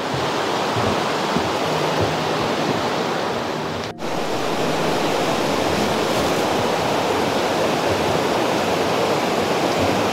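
Fast-flowing river water rushing, a steady loud rush that breaks off for an instant about four seconds in.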